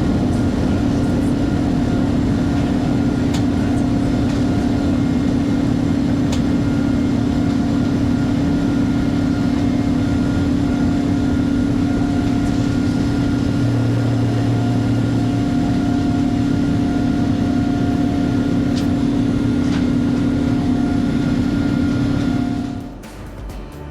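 Boeing 787 engines at high power during takeoff, heard from inside the cabin: a loud, steady rush of noise with a constant low hum. It cuts off abruptly near the end.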